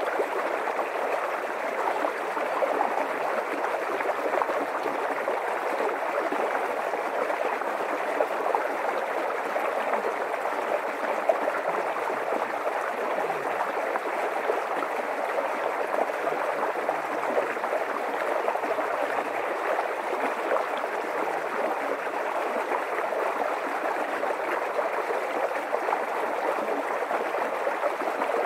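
A small stream running steadily, with an even, unbroken rush of water.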